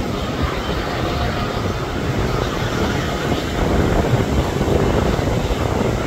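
A passenger train hauled by a diesel locomotive passes, making a steady, heavy rumble of engine and wheels that grows louder a little past halfway.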